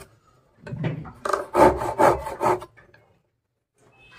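Hand saw cutting through a bundle of thin wooden harmonium sticks: a quick run of back-and-forth strokes, about five a second, starting just under a second in and stopping about halfway through.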